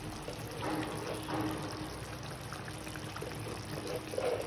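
Chicken curry simmering in a pan: a low, steady bubbling hiss of the cooking liquid.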